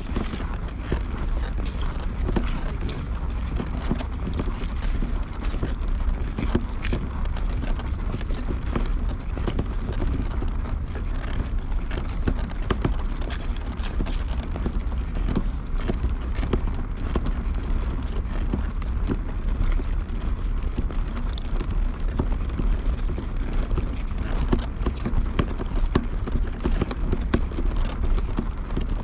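Footsteps of someone walking over pavement, as a string of irregular short knocks over a steady low rumble on the microphone.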